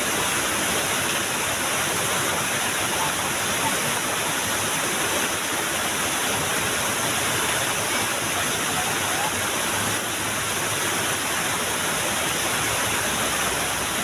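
A small waterfall's water rushing steadily, as a constant, even roar of falling water.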